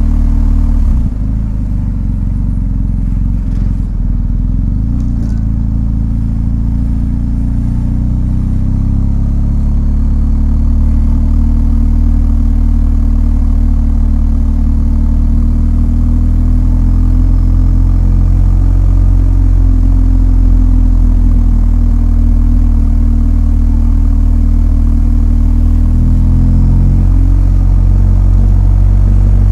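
BMW R1250 GS motorcycle's 1254 cc flat-twin boxer engine running under way, a deep steady exhaust note whose pitch shifts a few times: about a second in, around nine seconds and near the end.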